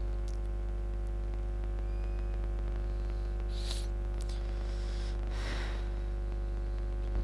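Steady electrical hum with a low buzz and its overtones, carried on the recording, with a few faint clicks and a brief soft rustle.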